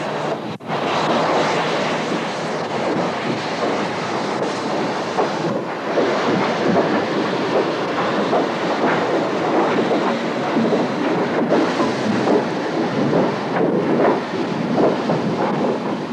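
Small industrial saddle-tank steam locomotive, the 1894 Peckett 'Hanbury', shunting a colliery yard: a continuous noise of working steam and wheels on the rails, with a brief dropout just under a second in.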